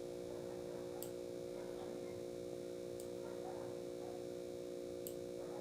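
Steady electrical hum of several fixed tones, with a few faint mouse clicks spread through it.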